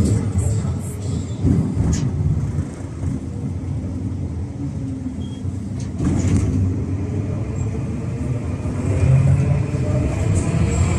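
Tram running along its rails, heard from inside: a steady low rumble with a traction-motor whine that sinks in pitch in the first couple of seconds and climbs again in the last few seconds as it picks up speed. A few light knocks.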